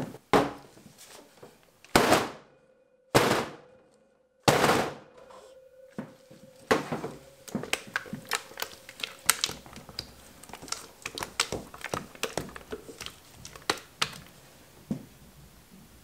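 Plastic soap-batter pitchers and utensils being handled on a stainless steel worktable: four heavy thunks in the first five seconds, then a run of light clicks and taps.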